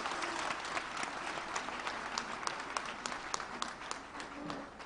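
Congregation applauding, the clapping thinning and fading near the end.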